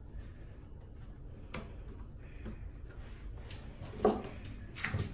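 Quiet room with a few light knocks and taps, the loudest about four seconds in and another shortly before the end.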